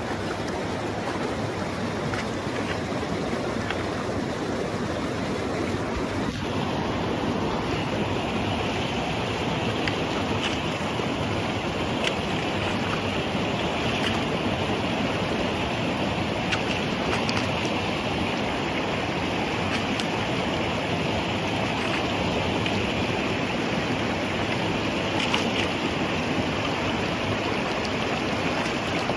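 Mountain stream rushing steadily, an even wash of running water that gets a little brighter and hissier about six seconds in.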